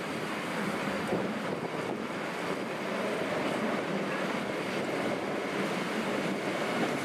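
Two coupled DB class 407 ICE 3 high-speed trainsets approaching at low speed over station pointwork: a steady rushing rolling noise with a faint low hum that grows gradually louder as they draw near.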